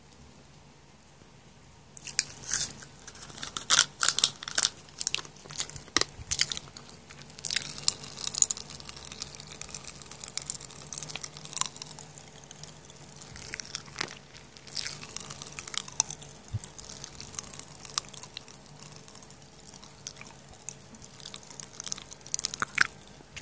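A crunchy snack being bitten and chewed close to the microphone: an irregular run of loud, crackling crunches starting about two seconds in.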